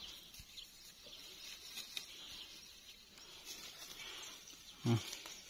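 Faint rustling and light crackling of dry brush underfoot, with a short, louder low huff or thump about five seconds in.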